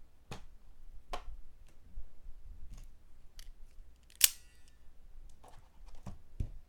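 Scattered light clicks and knocks of objects being handled, with one sharp click about four seconds in that rings briefly.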